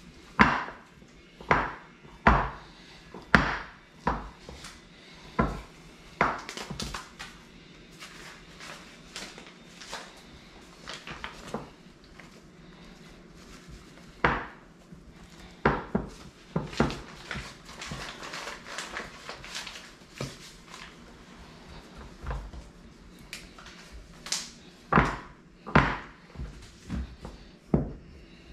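Sharp knocks and clunks of a pie plate against a stone countertop while sticky pastry is pressed into it by hand. They come about once a second at first, then scattered, with a second cluster near the end and soft handling noise between.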